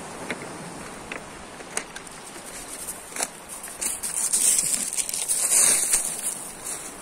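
Stones clicking and clattering on a pebble beach, a few at a time, over a steady hiss of wind and surf. The hiss swells loudest partway through, then falls back.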